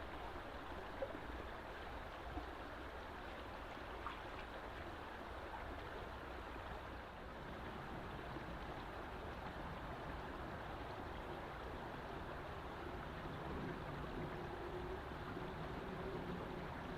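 Steady rushing of a woodland stream, a continuous even water noise.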